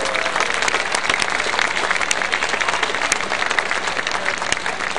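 Crowd applauding steadily, many hands clapping.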